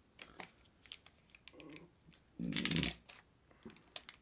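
Small plastic clicks and crinkles as a ranch dip cup is handled and its peel-off lid pulled back, with a brief louder burst a little past halfway.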